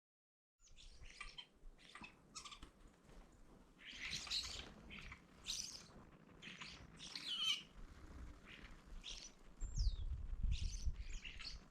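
Wild birds chirping, with many short, rough, high calls coming one after another and a single falling whistle near the end. A low rumble sits under the calls about ten seconds in.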